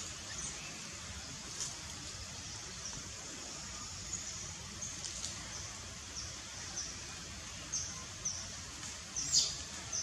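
Small birds chirping: short, high-pitched, downward-sliding chirps come irregularly, with a louder cluster near the end. A steady low outdoor background noise runs underneath.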